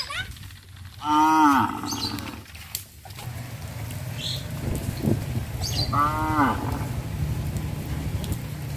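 Cattle mooing: two short, arched moos, the louder about a second in and another about six seconds in. A steady low rumble underlies the second half.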